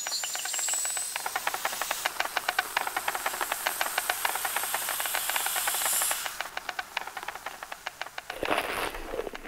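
Cartoon sound effect: a fast, dense rattle of clicks over a high hiss, which thins to sparser clicks after about six seconds.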